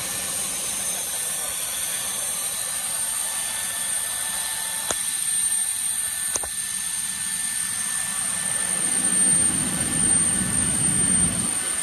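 Steady jet-turbine whine and rumble from an aircraft with a turbine running, with a high thin tone held throughout. Two sharp clicks come about five and six and a half seconds in, and the low rumble swells louder near the end.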